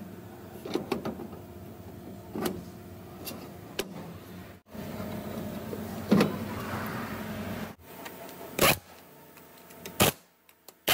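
Metal clinks and knocks as a brake drum and wheel hub are handled, over a steady machine hum. Near the end come two short bursts of a pneumatic impact wrench on the wheel nuts.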